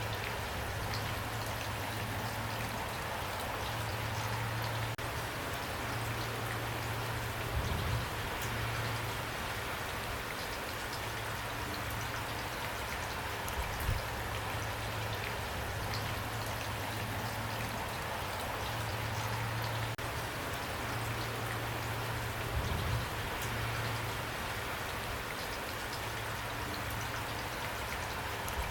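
Steady rain falling, with a few soft low thumps about 8, 14 and 23 seconds in.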